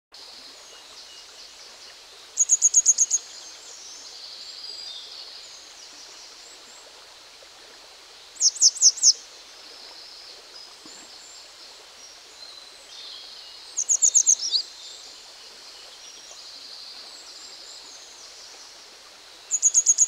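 Grey wagtail calling in four short bursts of rapid, sharp high notes, about five to six seconds apart, over the steady rush of a stream.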